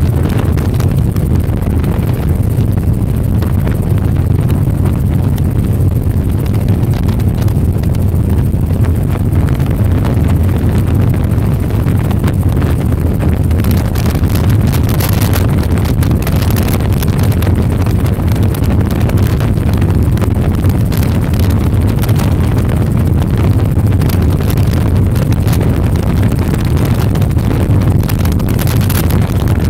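Helicopter in flight heard from inside the cabin: a loud, steady low drone of rotor and engine. Brief stretches of higher hiss come in about halfway and near the end.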